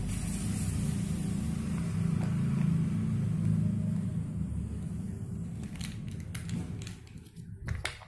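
A steady low rumble with a hiss over it, easing off and dropping away about seven seconds in. Near the end, a few sharp clicks of plastic building blocks being handled and pressed together on a tiled floor.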